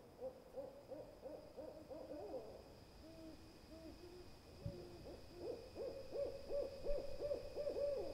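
Owl calls: runs of quick hoots, each note rising and falling in pitch. The middle run is lower and sparser, and a faster, louder run comes near the end.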